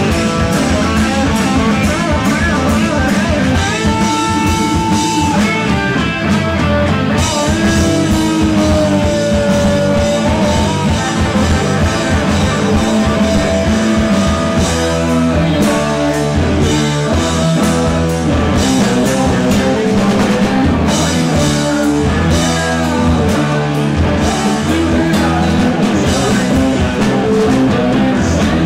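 Live heavy rock band playing: electric guitars, bass guitar and drum kit. Long held, bending lead-guitar notes ring out in the first ten seconds.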